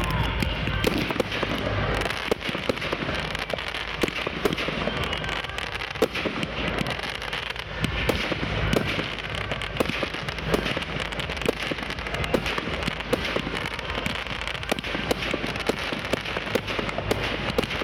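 Aerial display fireworks going off in rapid succession: a dense, irregular run of sharp bangs and pops, several a second, over a continuous crackle.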